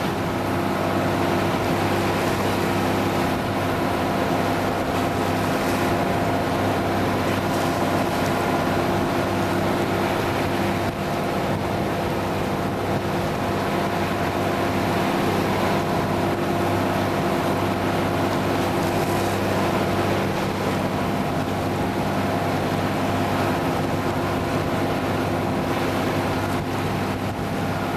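A boat's engine running steadily while under way, with wind and water rushing past.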